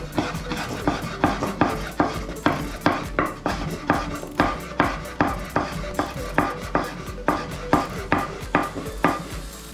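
Chef's knife chopping serrano ham on a wooden cutting board: a steady run of sharp knocks of the blade against the board, about two to three a second.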